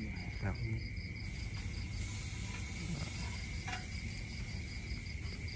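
Night insects, crickets among them, chirping steadily: a continuous high trill under a fast, even pulsed chirping. A single faint click comes about two-thirds of the way in.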